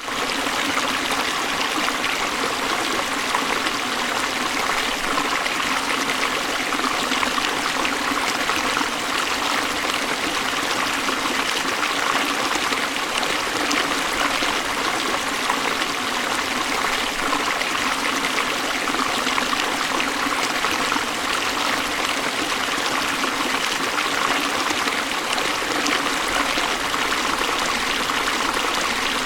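River water flowing in a steady, unbroken rush, with little deep rumble.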